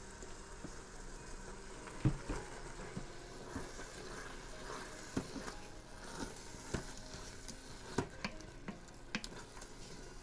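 Wooden spoon stirring pulled chicken in barbecue sauce in an Instant Pot's stainless steel inner pot on sauté mode, with the food sizzling and the spoon knocking irregularly against the pot, loudest about two seconds in.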